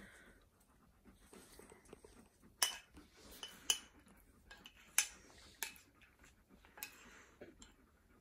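Metal spoon clinking and scraping against a ceramic bowl while someone eats: about six sharp clinks spread over a few seconds, starting about two and a half seconds in.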